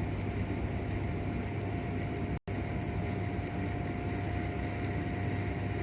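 Steady electrical hum and hiss with a thin constant high tone, broken by an instant of total silence about two and a half seconds in.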